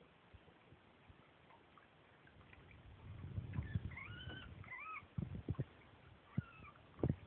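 Guinea pig squeaking: about four short, high-pitched calls that rise and fall, starting about four seconds in. Water splashes and knocks from the animal being handled in the sink come along with them.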